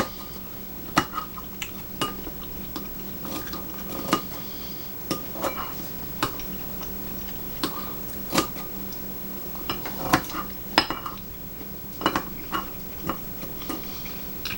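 Eating utensils clinking and tapping against dishes in irregular sharp clicks, over a steady low hum.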